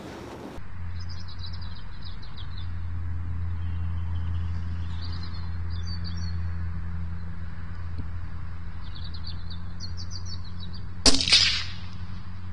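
A single shot from a moderated CZ455 rifle in .17 HMR about 11 seconds in: a sharp crack that rings briefly, with a second, smaller crack a split second later. Small birds chirp throughout over a steady low hum.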